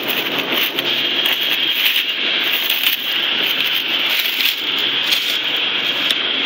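Steady whooshing fan noise of a florist's refrigerated cooler, with light crinkles and clicks as a cellophane sleeve of mini carnations is handled.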